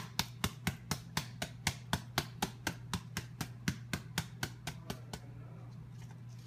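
Grated Parmesan in a Kraft plastic shaker canister being shaken hard over a bowl of spaghetti, giving a rhythmic tapping of about four strokes a second that stops about five seconds in.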